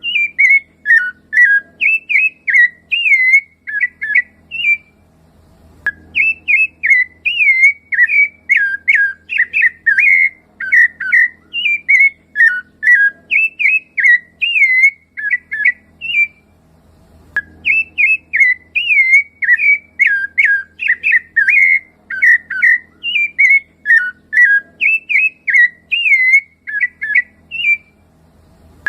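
Rufous-bellied thrush (sabiá-laranjeira) singing: long bouts of quick, fluty whistled notes that slide up and down, broken twice by pauses of about a second.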